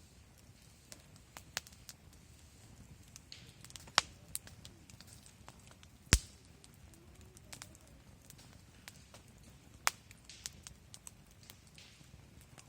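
Wood campfire crackling, with scattered small clicks and three sharp, loud pops about four, six and ten seconds in.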